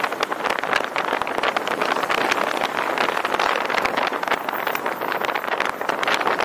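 Steady wind noise crackling on the microphone of a moving car, mixed with road noise. There are no clear engine tones.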